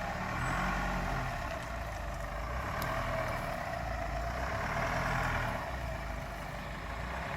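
A 4x4 off-road vehicle's engine running steadily at low speed, with a continuous low drone.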